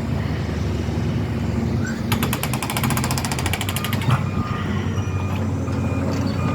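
A jackhammer hammering rapidly for about two seconds over the steady running of construction machinery engines, then a reversing beeper starts up, beeping evenly.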